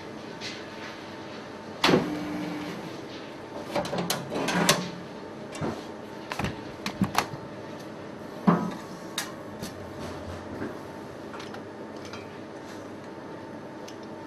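Scattered knocks and clatters of pastry work on a stainless-steel table, with tools and a metal tart tin being set down and handled, over a steady machine hum. The loudest knock comes about two seconds in, with a busy run of clatter a couple of seconds later.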